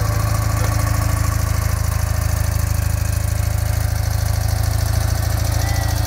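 1958 BMW R50's flat-twin engine idling steadily on its first run after a full restoration.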